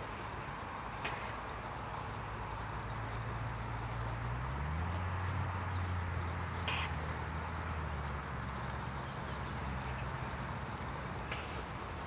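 A low motor hum that rises in pitch about four seconds in, holds, then fades, together with a small bird's short, high, downward-sliding chirps repeated several times in the middle.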